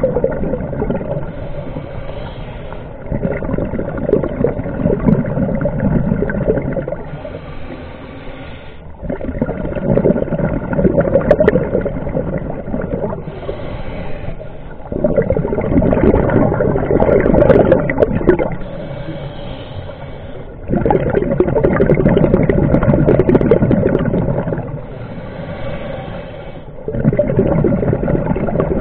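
A diver's breathing heard underwater: long, loud rumbles of exhaled bubbles alternate with shorter, quieter hissing inhalations, one full breath about every six seconds.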